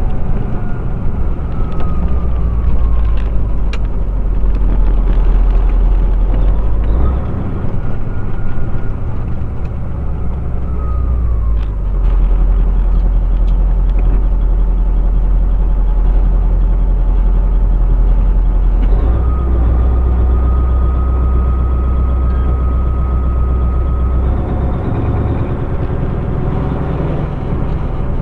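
Heavy truck's diesel engine running, heard from inside the cab with road noise, its note falling and rising several times as the revs change.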